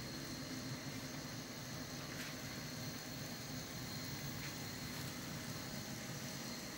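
Small drone's motors and propellers humming steadily, with a faint, steady high whine above the hum.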